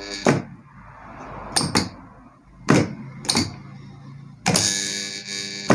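Sharp clacks of a star-delta starter's contactors snapping in and dropping out, about five in all, as they are pressed by hand. Near the end the energised contactor coil buzzes harshly for about a second.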